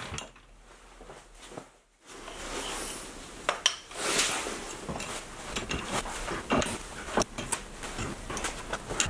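Hand-operated lathe indexing and line engraving: a run of light clicks, knocks and short scrapes as the brass indexing pin is moved between holes in the 3D-printed index plate and the pointed tool is run in to scrape graduation lines into the stationary workpiece. It is quieter for the first two seconds.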